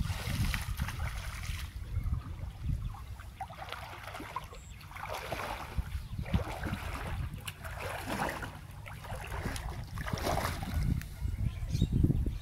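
A cast net splashing down onto shallow water at the start, then water sloshing in irregular bursts as a person wades knee-deep through it. A low wind rumble on the microphone runs underneath.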